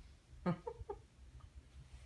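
Short animal calls from a pet monkey and a miniature schnauzer play-wrestling: one sharp call about half a second in, then two or three quicker, shorter ones.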